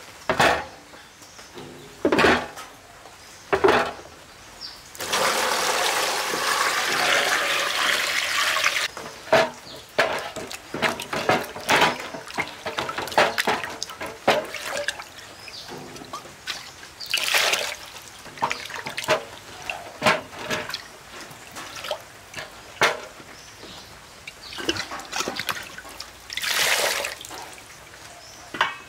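Water pouring steadily for a few seconds, then splashing and trickling among scattered knocks and clatter.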